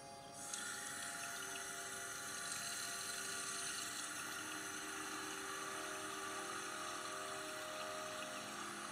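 A steady rushing-water ambience that comes in just after the start and holds evenly, with a few faint low held tones beneath it.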